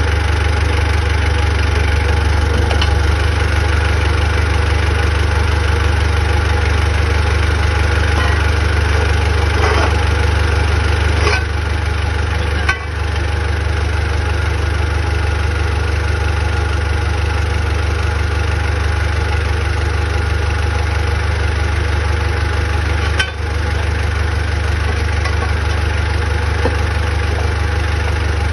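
Engine of heavy machinery running steadily at idle, with two brief dips in level, one about halfway and one near the end.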